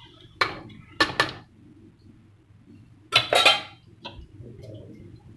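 Metal spoon clinking and scraping against an aluminium pressure cooker pot while stirring thick chicken curry: a few sharp clinks in the first second or so, then a longer clatter about three seconds in.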